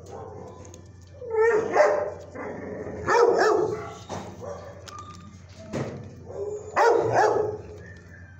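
Dogs barking in animal-shelter kennels, in four loud bouts about every one and a half to two seconds, over a low steady hum.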